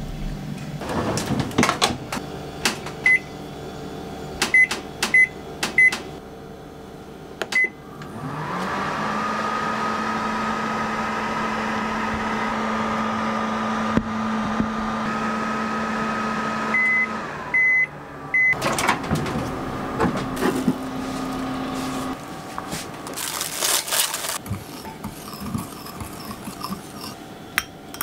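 Panasonic Bistro microwave oven: control-panel beeps as it is set, then it runs with a steady hum for about ten seconds, three beeps as it finishes and the hum stops, followed by clicks and knocks of the door and handling.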